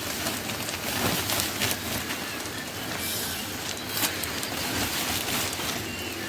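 Steady rush of river water, with a few short bird chirps and scattered small splashes or knocks over it.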